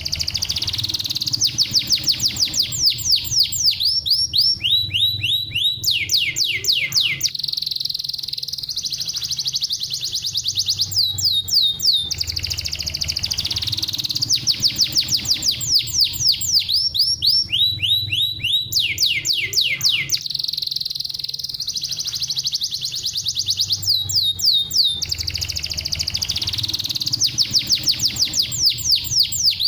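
Domestic canary singing: long, rapid trills of fast repeated downward-sweeping notes, in phrases that shift in speed and pitch, with the same sequence coming round again about every twelve seconds. A faint low hum runs underneath.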